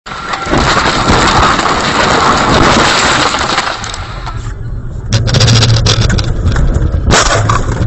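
Car crashes recorded by dashcams: a few seconds of loud crunching, rattling crash noise, then a lower engine hum with scattered knocks and a sharp smash about seven seconds in.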